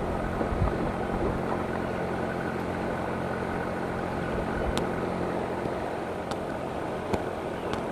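Steady rushing of a fast-flowing river with a low steady hum under it, and a few sharp clicks in the second half.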